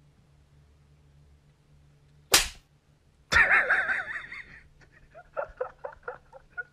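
A sharp smack about two and a half seconds in, followed by a loud, wavering high cry lasting about a second, then a quick string of short sounds near the end.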